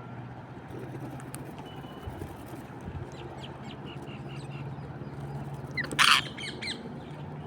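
A parrot gives one loud, harsh squawk about six seconds in, with a few softer chirps before and after it. A low steady hum sits underneath.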